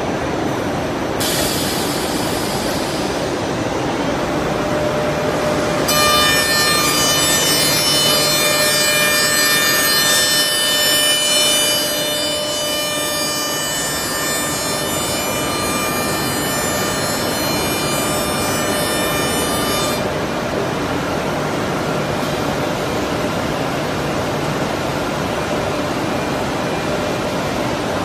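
CNC door stile shaping and drilling machine running over steady workshop machinery noise. A steady high-pitched whine starts about six seconds in and cuts off after about fourteen seconds.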